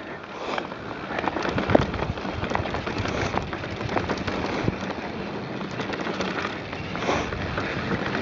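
Mountain bike riding fast down a rough dirt and gravel trail. The tyres make a continuous crackle over stones, broken by frequent sharp knocks and rattles from the bike.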